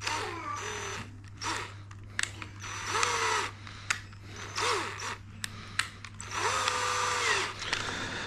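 Power drill run in about five short bursts, its motor speeding up, holding and winding down each time, with a few sharp clicks in between.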